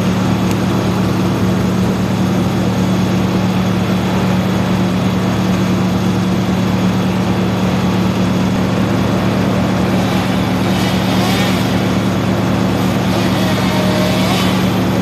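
An engine running steadily at idle, an even, low hum with a fast regular pulse, from the machinery of the tree-felling work. A few brief hissy sounds rise over it near the end.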